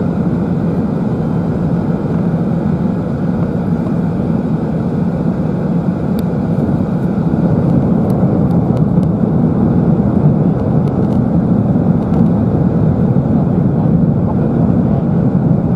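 Steady in-flight cabin noise of a British Airways Airbus A380-841 on its descent: a constant low rush of airflow and engine noise, growing slightly louder about halfway through.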